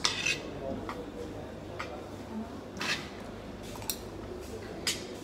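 Metal spoons clinking and scraping against plates of rice as people eat, about half a dozen short, sharp clinks roughly a second apart.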